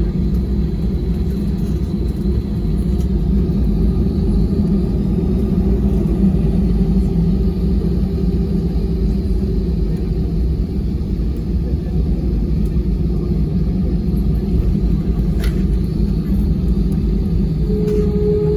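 Steady low rumble of an Airbus A320's engines and airflow heard from inside the passenger cabin during the landing. There is a short click about three quarters of the way through, and a thin steady tone comes in near the end.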